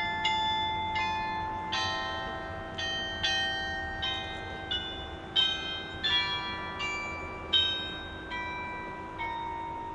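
Tower bells playing a melody: a dozen or so notes of differing pitch struck one at a time, each ringing on and fading as the next is struck.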